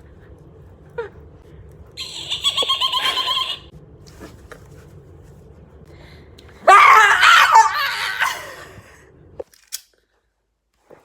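A made-up vocal sound: a high, fluttering squeal lasting about a second and a half. Some seconds later comes a loud burst of laughing and shrieking that fades out, then the sound cuts off suddenly.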